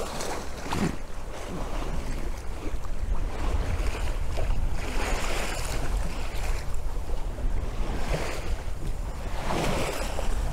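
Sea water rushing and splashing along the hull of a sailboat under sail, engine off, with wind buffeting the microphone in a low rumble. The splashing swells up twice, around the middle and again near the end.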